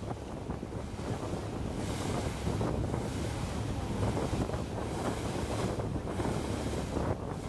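Wind buffeting the microphone over the wash of river water and a low steady engine drone from a general cargo ship underway. The wind gusts harder from about two seconds in.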